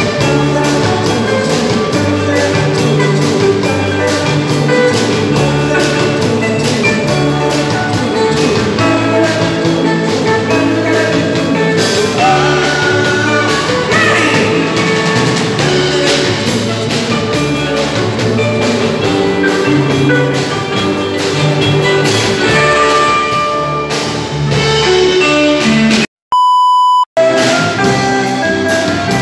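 A live band playing a steady-beat dance number on electric guitars and a drum kit. About 26 seconds in, the music cuts out and a steady electronic beep sounds for about a second before the music returns.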